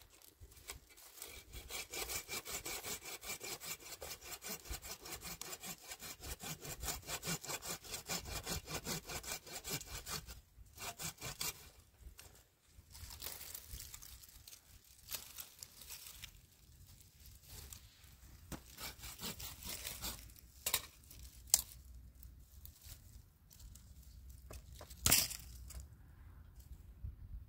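Saw cutting through wood in quick, even strokes for the first ten seconds or so, then slower and more irregular sawing and scraping, with a couple of sharp wooden knocks near the end.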